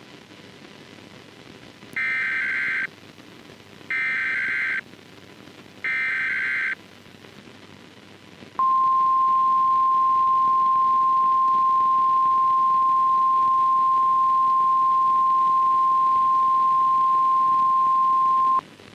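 NOAA Weather Radio alert signal: three short buzzy SAME data bursts, two seconds apart, then the steady single-pitch 1050 Hz warning alarm tone held for about ten seconds and cut off sharply. This is the signal that a weather warning broadcast is about to follow.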